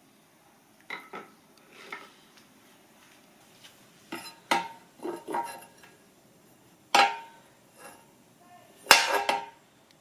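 Metal pieces clinking and clattering as they are handled: several short clusters of knocks with a brief ring, the loudest one about seven seconds in and another near the end.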